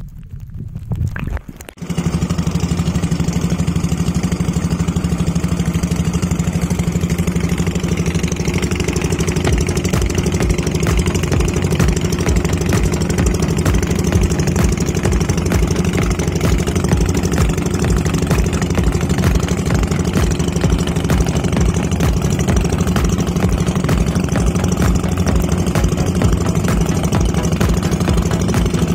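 Small fishing boat's engine running steadily, cutting in suddenly about two seconds in.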